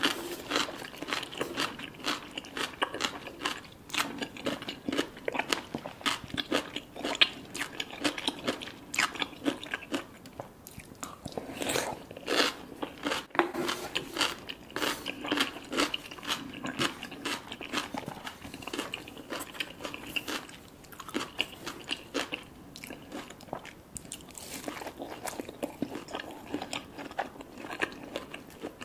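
Someone biting and chewing crunchy food, with many sharp, irregular crunches throughout.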